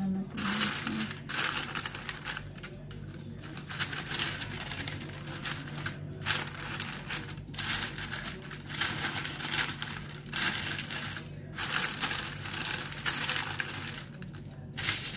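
Sheet of baking paper crinkling and rustling as hands spread it out and press it down, in irregular bursts with short pauses between.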